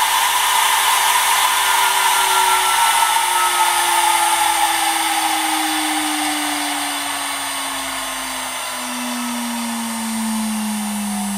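High-speed CNC router spindle whining over a dense hiss. Its pitch falls slowly and steadily and its level eases off, as the spindle winds down.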